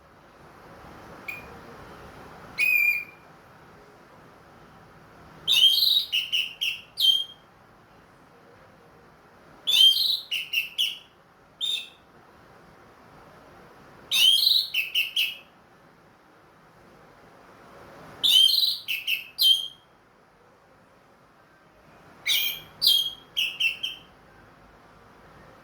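Orange-headed thrush (anis merah) singing short, quick whistled phrases of rising and falling notes, repeated about every four seconds.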